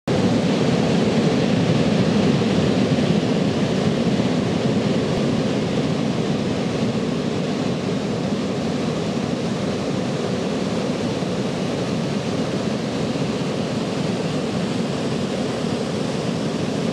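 Ocean surf: waves breaking and washing in as a steady rushing noise, a little louder in the first few seconds.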